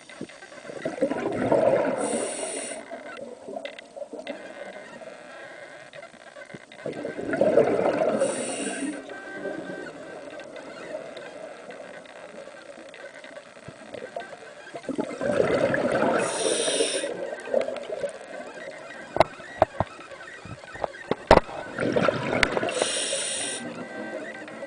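Scuba diver breathing underwater through a regulator: each breath is a two-second rush of bubbles ending in a short hiss, four times, about every seven seconds. A few sharp clicks come between the third and fourth breaths.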